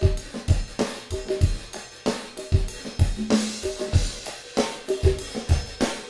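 A recorded drum kit playing a steady beat, with kick, snare, hi-hat and cymbals, sent through the T-RackS Fame Studio Reverb. The reverb is turned up and exaggerated, so each hit rings on in an emulated Muscle Shoals live room.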